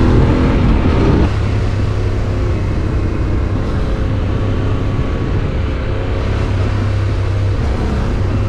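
Yamaha Tenere 700's parallel-twin engine, fitted with an Akrapovic exhaust, revving up under way; about a second in the revs fall and it runs on steadily under wind rush.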